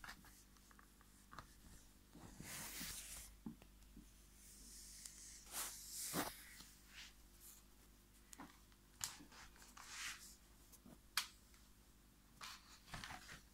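Faint handling noise: scattered light taps and clicks with a couple of soft rustles as a cardboard advent calendar is moved about and looked over.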